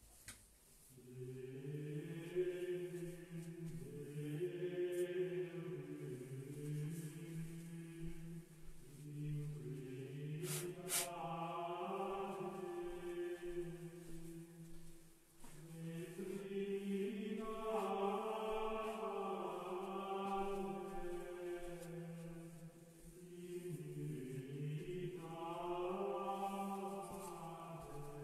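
Slow sacred chant sung by voices in long held notes that move step by step, in long phrases with short breaks between them. Two sharp clicks come about ten and a half seconds in.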